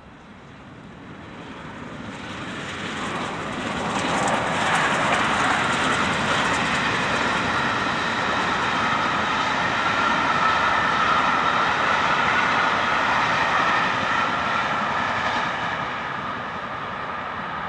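A train passing at speed on the main line: a rushing rumble of wheels on rails that builds over the first four seconds, holds steady, and eases slightly near the end.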